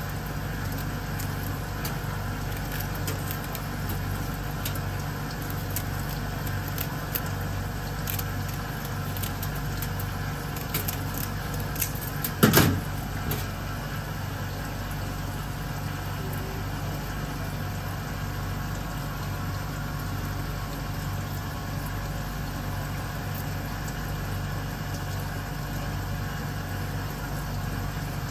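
Steady mechanical hum made of several even tones, with scattered light clicks as metal tweezers pick at an opened sea urchin, and one sharp knock about twelve and a half seconds in.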